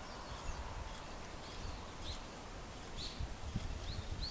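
Small birds chirping: short arched chirps, scattered a second or so apart and coming faster near the end, over a low rumble.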